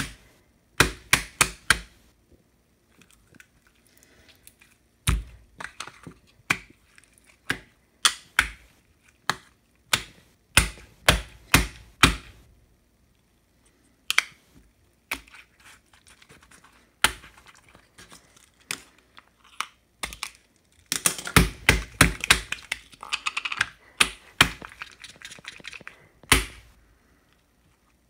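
Slime being squeezed and pressed by hand on a countertop, making sharp clicking pops as trapped air snaps out, in quick runs of several clicks with pauses between. About three quarters of the way through there is a denser spell of crackling.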